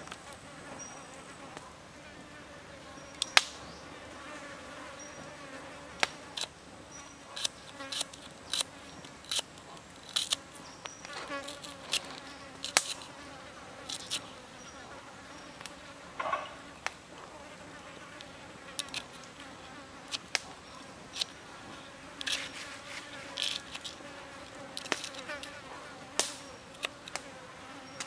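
Cleaver blade knocking on a wooden stump chopping block in irregular sharp taps as it slices garlic, shallot and chili. A steady insect buzz runs underneath.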